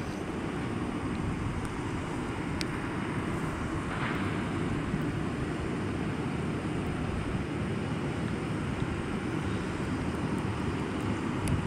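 Boeing 737-800's CFM56 jet engines running at taxi idle, a steady noise mixed with wind on the microphone.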